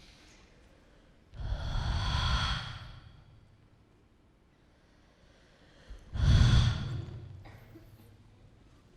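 Two loud human breaths, one about a second in and a louder one about six seconds in, each starting suddenly and fading away over a second or so.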